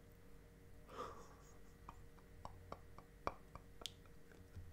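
Near silence: room tone with a soft breath about a second in, then a scatter of faint short clicks.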